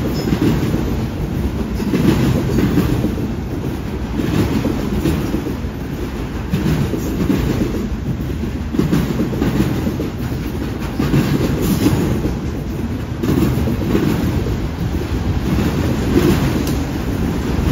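Freight train's autorack cars rolling past at close range: a steady low rumble of steel wheels on rail with a rhythmic clickety-clack, swelling about every two seconds as each car's wheel sets go by.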